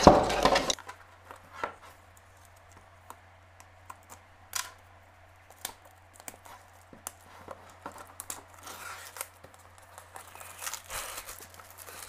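Plastic shrink-wrap being cut and peeled off a cardboard box: scattered small clicks and scrapes, with louder crinkling of the plastic in the second half.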